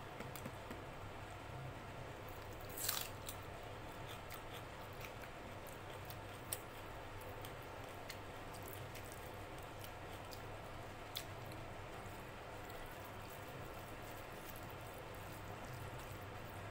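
Close-up eating sounds of rice mixed by hand with dal and mashed vegetables: soft chewing and fingers squishing rice on the plate, with a short louder smack about three seconds in and a couple of sharp little clicks later. A steady low hum lies underneath.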